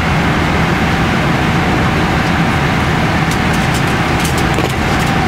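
Steady in-flight cabin noise of a Boeing 777-300ER: a constant drone of engines and airflow. In the second half, a few faint light clicks as a plastic ice cream tub is handled.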